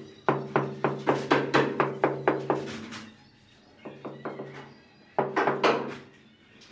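Rapid knocking on a ceramic wall tile as it is tapped down into its mortar bed, about four or five knocks a second. A long run comes first, then a lull with a few faint knocks, then a shorter run near the end.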